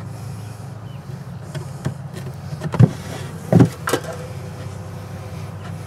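Bellows bee smoker puffed three times in quick succession about three seconds in, blowing smoke over the opened hive, over a steady low hum.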